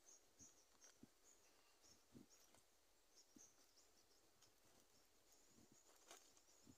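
Near silence: faint outdoor ambience with scattered faint high chirps and a few soft knocks, and one sharper click about six seconds in.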